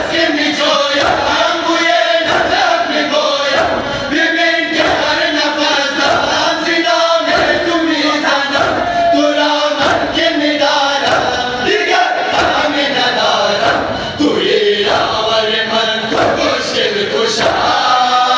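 A crowd of men chanting a mourning lament (noha) together. Open hands strike chests in matam, making a steady rhythmic beat.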